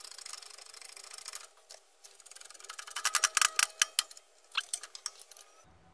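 Rapid metallic clicking and rattling as a 21 mm socket is worked onto a bearing race inside a differential housing on a hydraulic shop press, then brought under the press ram. The clicks come in a fast run at first, then louder and sharper from about two to four seconds in, with a few single clicks near the end.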